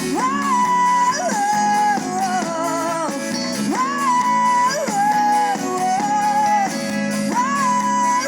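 Sertanejo song: a melodic phrase of held notes that slides up, holds and steps back down, repeated three times, over guitar accompaniment.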